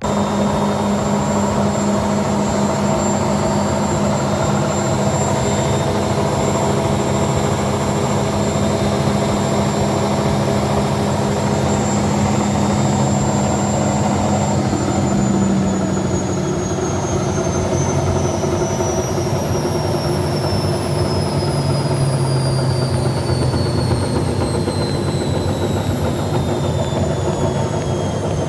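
Washing machine drum spinning at full speed on freshly replaced bearings: a steady mechanical hum with several steady tones. About halfway through, a high whine starts falling steadily in pitch.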